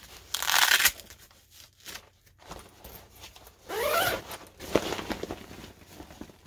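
Zipper on a Crooks and Castles fabric duffel bag being pulled open in two quick strokes, one near the start and one about four seconds in, with fabric rustling between them.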